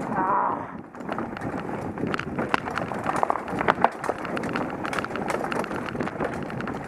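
Mountain bike descending a rocky dirt trail: tyres crunching over stones and roots, with a constant clatter of sharp clicks and knocks from the bike. There is a short wavering squeal in the first second.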